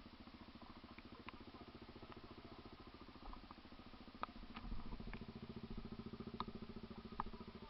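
Off-road vehicle engine running at low revs on a rough trail, its beat picking up slightly about halfway through. There are a few light clicks and knocks over it.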